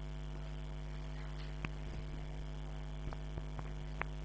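Steady electrical mains hum, with about five short sharp clicks in the second half; the loudest click comes near the end.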